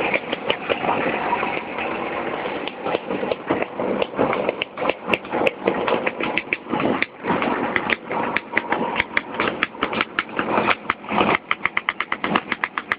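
Vespa scooter's two-stroke engine running while it rides, picked up close by a handheld phone, with an uneven pulsing that comes faster near the end.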